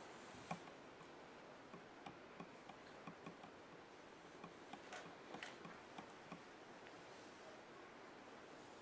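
Near silence: faint room tone with scattered small irregular ticks and clicks that die away after about six seconds.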